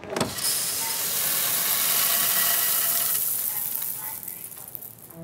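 Coffee beans pouring in a long rushing hiss from a bulk gravity-bin dispenser, easing off over the last couple of seconds.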